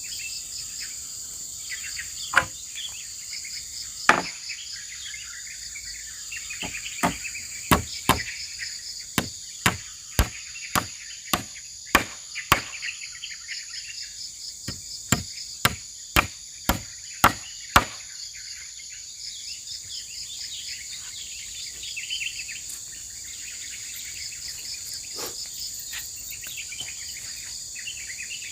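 Hammer driving small nails into a fence: a couple of single blows, then a run of about a dozen strikes at roughly two a second, a short pause, and a shorter run of about six more. Insects buzz steadily throughout.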